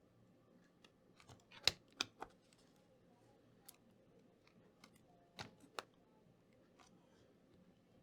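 Sharp plastic clicks and light knocks of a laptop's battery and chassis being handled: a quick cluster of three about two seconds in, two more a little past five seconds, and softer ticks in between.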